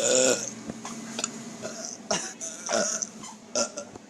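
A person burping loudly on purpose, one pitched belch about half a second long right at the start, followed by a few fainter short sounds.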